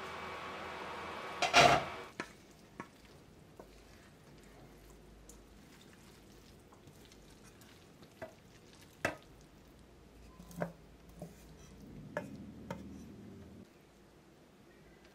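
A pan hissing steadily on an induction hob, then a loud metallic clatter of the stainless steel pan. After that come scattered light clinks and knocks of the pan against a ceramic plate as the noodles are tipped out, with a soft low rumble near the end.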